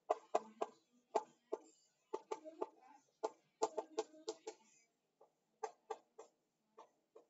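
Chalk writing on a blackboard: a quick, irregular run of short taps and scrapes as an equation is written out, with a brief pause about five seconds in.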